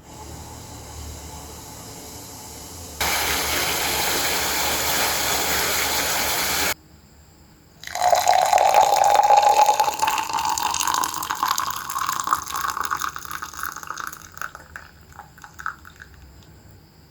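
Water running in a steady rush for a few seconds. After a short pause, liquid is poured into a container, the pitch of the pour rising as the vessel fills, then the stream thins to trickles and stops.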